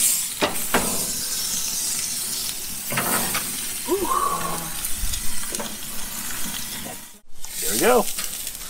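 Thick Wagyu tomahawk steaks searing on a gas grill's grates over open flame, a steady sizzling hiss, with metal tongs clicking against the grates now and then. The sound cuts out for a moment about seven seconds in.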